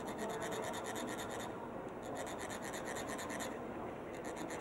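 Metal chakpu sand funnel being rasped along its ridged shaft, a rapid, even scratching that shakes fine coloured sand out of its tip. It comes in three runs with short breaks between them, about a second and a half into the sound and again near three and a half seconds.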